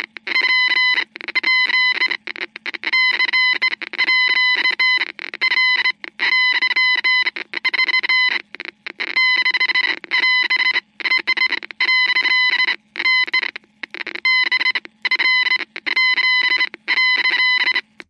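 Morse code playback: a beeping tone keyed rapidly in short and long pulses, dots and dashes grouped into characters with brief pauses between groups, over a faint steady low hum.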